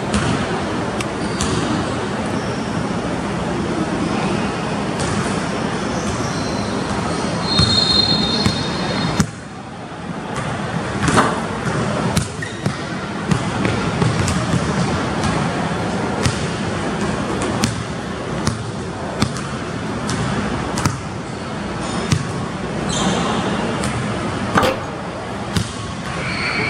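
Basketball bouncing and hitting on a hardwood gym floor during one-on-one play: sharp thuds at uneven intervals over a steady background hiss, with a brief high squeak about eight seconds in.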